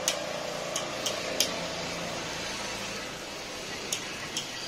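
A metal spatula clinking against a large flat griddle (tawa) as parottas are turned and moved. There are about six short, sharp clicks, unevenly spaced, over a steady background noise.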